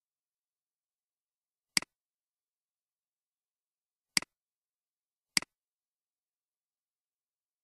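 Computer mouse clicks, three of them: one about two seconds in, then two more about a second apart near the four- and five-second marks. Each is a sharp double tick of the button going down and coming back up.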